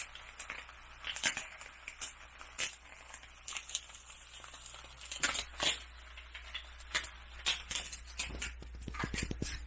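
Kitchen clatter while breakfast is being made: irregular clicks, taps and knocks, with a quick flurry of them near the end, over a steady low hum.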